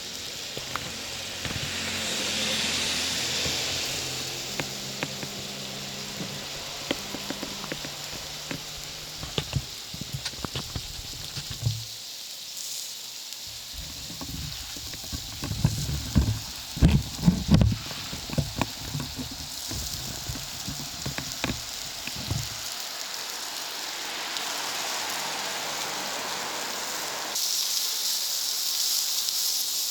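Food sizzling on a wood-fired barbecue plancha, with a steady hiss broken by small crackles and clicks. A cluster of loud low thumps comes about halfway through, and the sizzle grows louder near the end.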